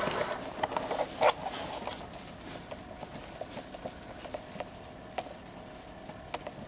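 Camcorder handling noise: scattered small clicks and a few louder knocks about a second in, over the faint steady hum of the video camera's tape motor.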